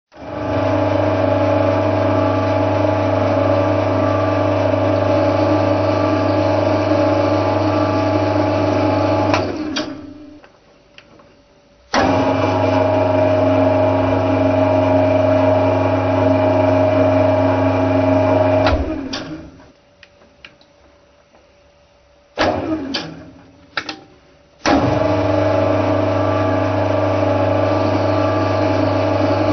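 Centre lathe running with a steady mechanical drone while a tool turns a metal workpiece. The drone winds down and stops twice, starts again abruptly, and comes back in two short bursts before running steadily again near the end.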